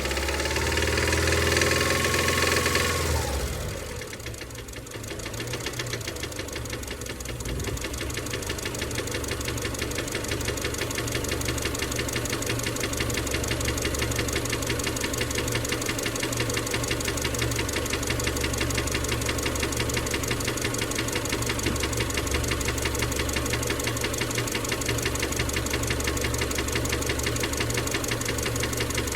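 Subaru EJ253 2.5-litre flat-four engine held above idle for about three seconds, then dropping back and idling steadily with a rapid, even knock from the middle of the engine, which the owner suspects is rod knock.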